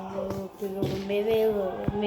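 Music: a sung tune with held, gliding notes over a steady low note, accompanying a child's dance.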